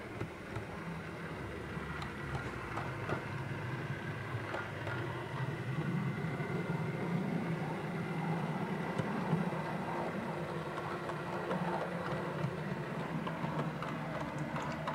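Model two-car electric multiple unit running along layout track: a steady running hum and rumble from the motor and wheels, with occasional sharp ticks, swelling slightly and easing off near the end as the train passes.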